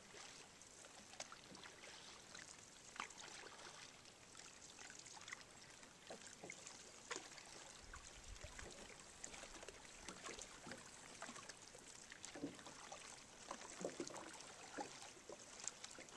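Faint water around a paddled boat: an irregular patter of small drips and splashes, with a few louder splashes in the second half.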